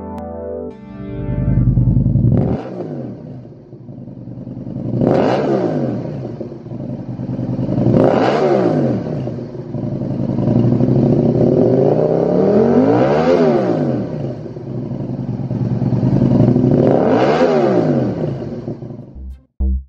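Aprilia RSV1000's V-twin engine breathing through a Lextek XP13C aftermarket silencer, revved at standstill: about five throttle blips, each rising in pitch and falling back to idle, with one held longer around the middle.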